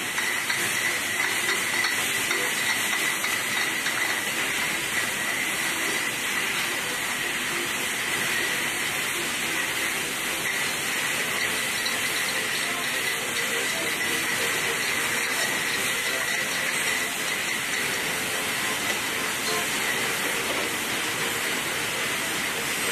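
Brewery bottling-line machinery running: a conveyor carrying full glass bottles and a crate packer loading them into crates. It makes a steady, even hiss with one constant high tone through it.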